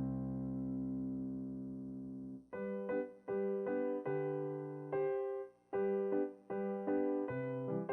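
Background piano music: a held chord fades for the first couple of seconds, then a gentle phrase of struck chords begins, broken by short pauses.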